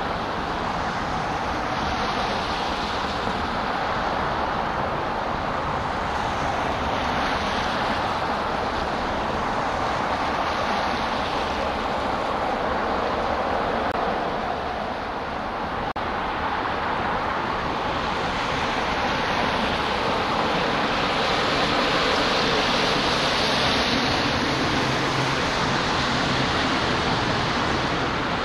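Steady waterfront ambient noise: an even wash with no distinct events, dipping briefly about halfway through and a little louder in the second half.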